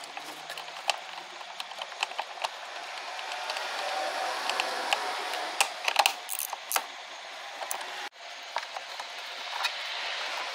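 Plastic air filter box parts being handled and fitted by hand: scattered light plastic clicks and knocks over a steady hiss.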